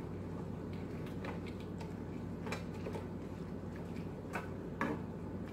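Wire potato masher mashing softened vegetables in a skillet, with a few scattered light clicks as it taps against the pan.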